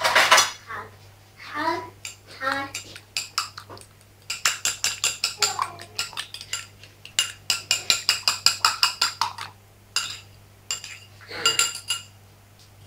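A metal utensil beating egg yolks and milk in a small glass bowl: a fast run of ringing clinks against the glass, about five a second. It starts about four seconds in and lasts about five seconds.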